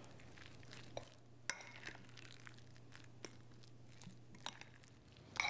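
Fork mashing and stirring chunky guacamole in a glass bowl: faint soft mashing sounds with a few light clicks of the fork against the glass.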